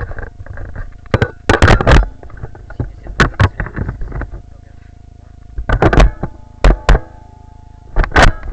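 Loud knocks and bumps in several short clusters, the sound of the camera and the blaster it rides on being handled and jostled close to the microphone, over a faint steady hum.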